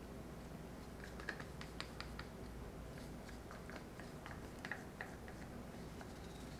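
Faint, irregular light clicks and taps of a wooden craft stick working wet acrylic pouring paint on photo paper, with gloved hands handling the stick.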